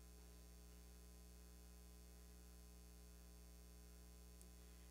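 Near silence: room tone with a faint, steady low electrical hum.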